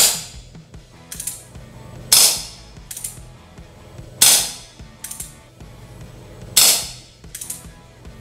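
CO2-powered Colt Single Action Army replica gel blaster revolver firing four shots about two seconds apart, each a sharp pop with a short gas hiss. Between shots, a lighter click as the hammer is thumbed back for the next single-action shot.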